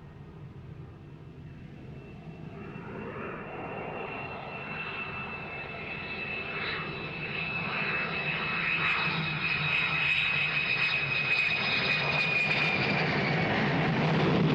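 Film sound effect of a jet-like engine: a rushing whine with a high, steady whistle that builds louder over about ten seconds, then holds as the whistle fades near the end.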